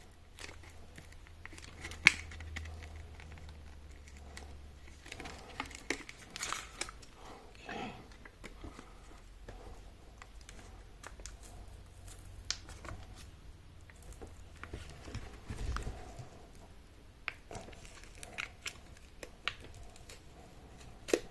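Plastic phone back cover being pried and peeled away from its adhesive: scattered small clicks, taps and crinkling, with a sharp click about two seconds in and another near the end.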